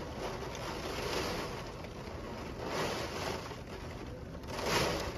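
Hurricane wind gusting through trees and garden vines with driving rain, rising and falling in swells, the strongest gust near the end.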